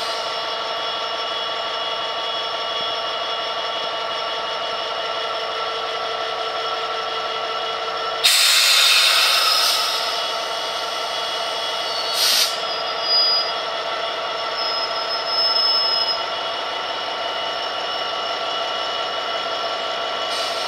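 Class 66 diesel locomotive's two-stroke V12 engine idling, a steady drone with a whine on top. About eight seconds in comes a sudden loud hiss of air that fades over a second or two, followed by a few shorter hisses.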